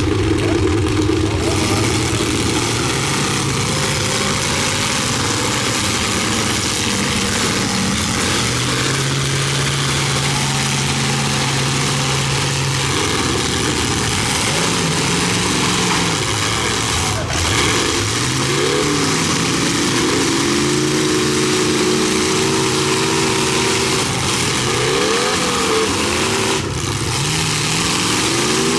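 Engines of several demolition derby cars running and revving hard over a continuous din, their pitch rising and falling again and again as they accelerate and back off.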